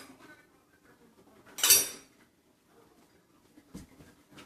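Metal cutlery clattering once, a sharp jangle about two seconds in, with a softer knock near the end.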